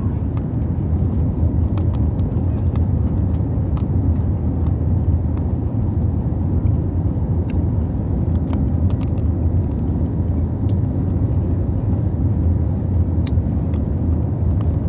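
Steady, loud low rumble of an airliner's engines and airflow heard from inside the cabin during takeoff, with a few faint ticks and rattles.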